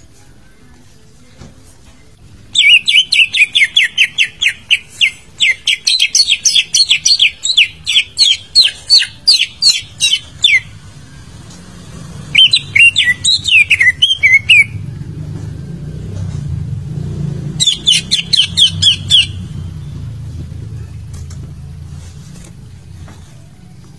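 Cucak ijo (green leafbird) singing in three runs of rapid, loud chirping notes, about five a second, with short pauses between the runs. A low rumble runs underneath in the second half.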